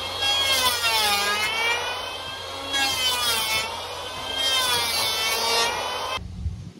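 Saw blade being sharpened with a file: a high-pitched metallic screech in about three long strokes, its pitch dipping and rising within each stroke. It cuts off suddenly near the end, leaving a low hum.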